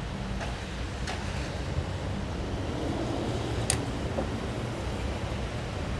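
Steady low rumble, with a few light clicks and one sharper click a little over halfway through.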